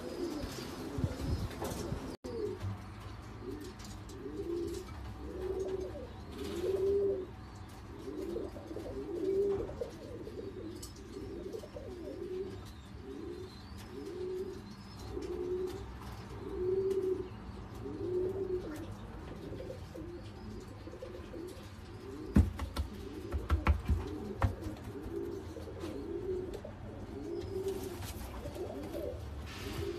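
Jacobin pigeons cooing over and over, one rising-and-falling coo about every second. A few sharp knocks come about three quarters of the way through.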